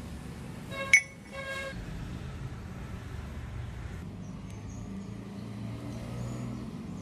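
Two short toots of a vehicle horn about a second in, over a steady low rumble.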